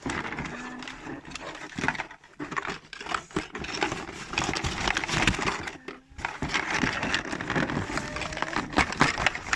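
Packaging being handled during a toy unboxing: irregular crinkling and rustling with small clicks and knocks.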